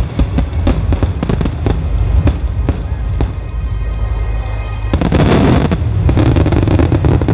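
A rapid volley of 10-inch (shakudama) aerial firework shells bursting: many sharp bangs in quick succession, overlapping and echoing. It thickens into a denser, louder stretch about five seconds in.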